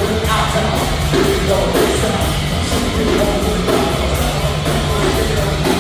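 Live rock band playing through the PA with a singer, over a steady drum beat.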